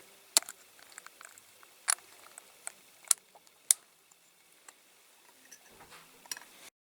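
Small sharp clicks and taps of diecast model parts being handled and fitted together, with four louder clicks in the first four seconds and a few fainter ones after.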